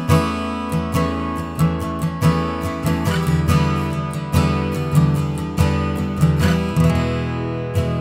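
Larrivee D-40R dreadnought acoustic guitar, moonwood red spruce top with rosewood back and sides, strummed in a steady rhythm with an accented strum about every three-quarters of a second and chords ringing between strokes. Recorded unprocessed.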